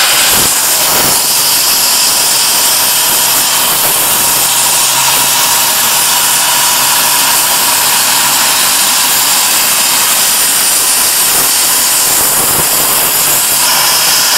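High-power CNC plasma torch cutting 25 mm carbon steel plate: a loud, steady hiss of the plasma arc and gas jet that cuts off suddenly at the end as the cut finishes.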